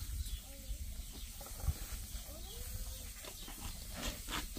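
Gloved hands scooping and scraping wet cement mortar in a metal wheelbarrow, with a few quick gritty scrapes about four seconds in, over a low rumble of wind on the microphone.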